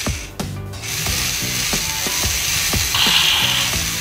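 Gearbox of a motorized Zoids Saber Tiger model running: a steady clatter of small plastic gears with regular ticks, about three a second, dipping briefly near the start.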